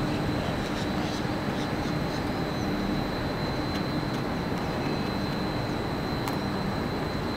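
Steady outdoor city background noise: a constant low rumble, with a faint, steady high-pitched whine above it.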